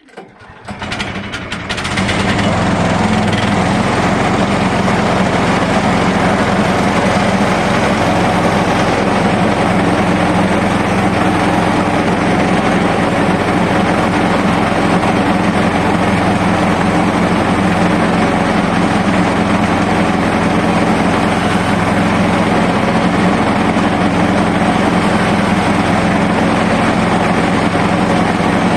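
Portable bandsaw sawmill's petrol engine started on choke: it sputters and catches in the first couple of seconds, then runs loud and steady.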